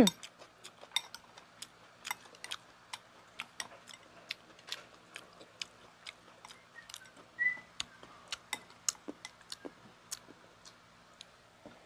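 Close-miked eating: irregular sharp clicks and smacks of chewing, a few each second, mixed with a spoon clicking against a ceramic bowl.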